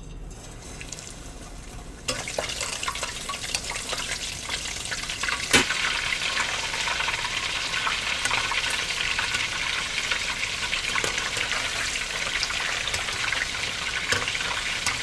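Egg-battered bread-and-cheese squares deep-frying in oil at about 170°C, a dense crackling sizzle that starts suddenly about two seconds in. There is one sharp click a few seconds later.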